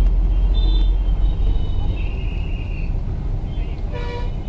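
Busy outdoor street noise: a steady low rumble with faint distant voices and calls, and a brief horn toot near the end.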